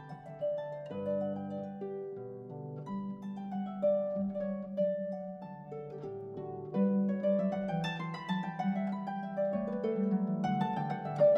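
Background music: a harp-like plucked-string melody, quick notes that ring and fade, moving up and down over held low notes.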